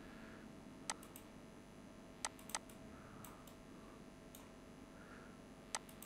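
Computer mouse clicking: a few sharp single clicks a second or more apart, two of them close together, over faint steady room noise.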